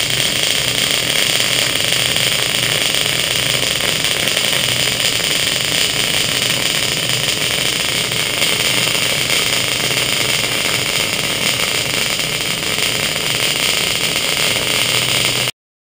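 MIG welding arc crackling and sizzling steadily as a bead is run on steel. The sound cuts off suddenly near the end.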